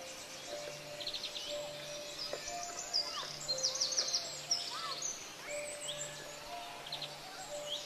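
Several birds chirping and trilling, with quick high trills and sweeping calls over a steady pulsing background.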